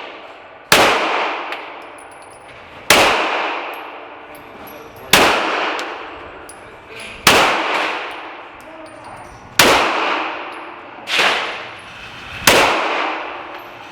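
Pistol shots at an indoor range, six loud reports about two seconds apart, each with a ringing echo that dies away, and a quieter shot about eleven seconds in.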